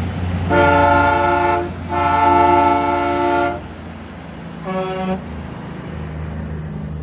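A semi truck's air horn is blown three times, two long blasts and then a short one, sounding several notes at once. Under it runs the steady low rumble of diesel truck engines.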